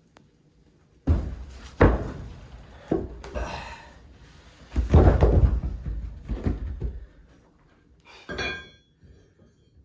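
Heavy fireplace foundation stones being pried and shifted with a steel crowbar: a run of deep, heavy thuds and grinding knocks, the loudest about five seconds in, then a short ringing metal clank near the end.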